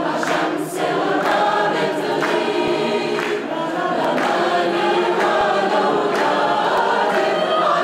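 Mixed choir of men and women singing an Arabic song together, many voices in sustained harmony.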